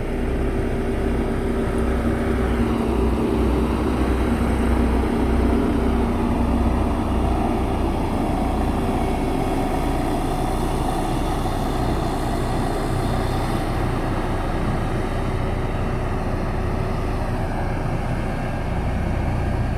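JCB backhoe loader's diesel engine running steadily as the machine works, a continuous low drone with no breaks.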